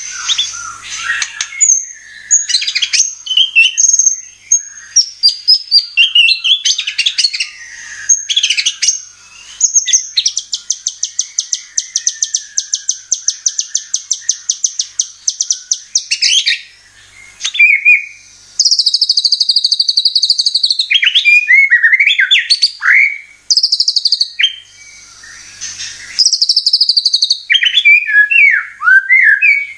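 White-rumped shama (murai batu) singing a long, varied song of whistles, chattering phrases and fast trills with short gaps, including an even rapid trill lasting about six seconds a third of the way in and buzzy trills later on.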